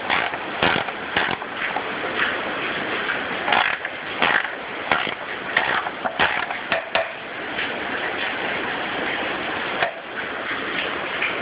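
Socket ratchet clicking in short irregular strokes as a belt tensioner bolt on a mower deck is adjusted, mostly in the first several seconds. Under it is the steady hiss of heavy rain.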